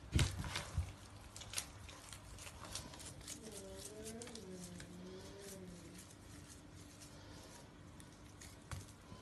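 Hands tearing off and shaping pieces of soft bran bread dough in an earthenware bowl: a few sharp pats and knocks in the first second, then faint scattered taps and rustles. A faint wavering hum sits in the background midway.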